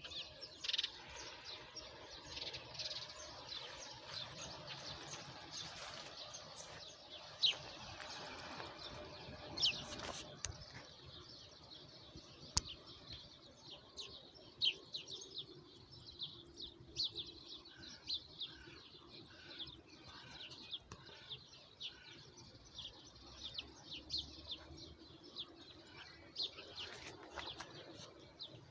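Small songbirds chirping and singing, many short high calls overlapping, busiest in the first ten seconds and thinning out after. A single sharp click sounds about twelve seconds in.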